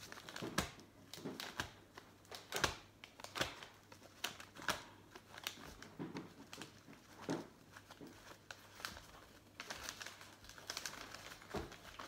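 Wrapping paper crinkling and rustling in irregular short crackles as a small gift is unwrapped by hand.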